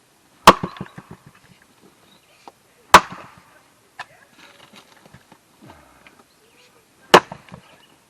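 Three sharp axe strikes into a wood block, roughly two to four seconds apart, each followed by a short patter of smaller knocks.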